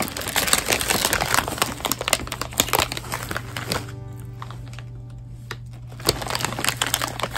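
Foil-lined snack bag crinkling as hands rummage inside it and pull out an onion ring. It comes in two bouts: a long one of about four seconds at the start and a shorter one near the end. Background music plays underneath.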